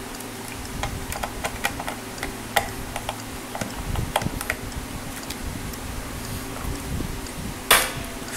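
Small metallic clicks and taps as guitar strings and hex keys are handled against a Floyd Rose floating bridge during re-stringing, with a brief louder scrape near the end, over the steady hum of an electric fan.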